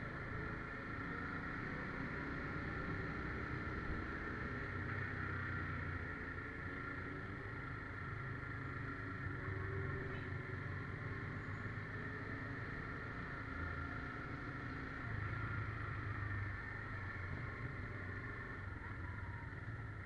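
SYM 250 motorcycle engine running steadily at low speed while the bike rides slowly, with the low hum of the engine holding fairly even throughout.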